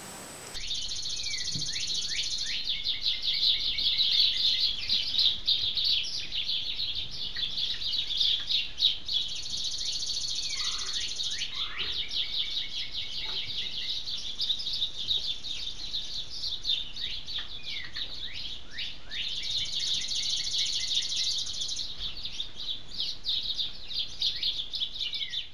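Many small birds chirping and singing at once, a dense, continuous chatter of quick high notes with occasional downward-sliding calls.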